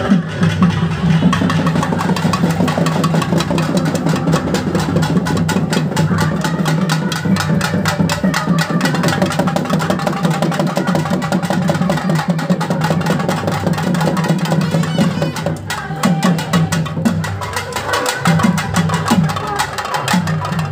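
Loud, fast traditional drumming with accompanying music, dense rapid strokes over a steady pitched drone, played for a kavadi dance at a temple festival.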